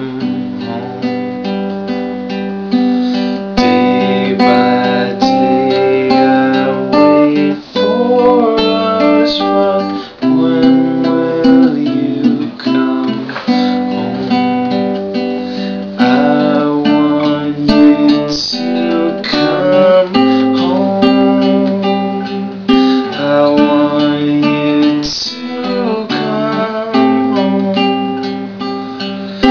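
Cutaway classical guitar strummed and picked, the chords changing every second or so.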